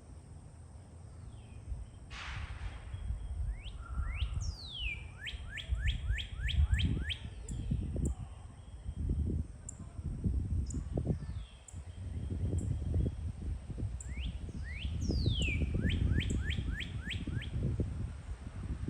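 A songbird singing two phrases, each a long falling whistle followed by a quick run of short, sharply falling notes, about three a second. The first phrase comes about four seconds in and the second about fifteen seconds in. Under the song runs a low rumble of wind on the microphone.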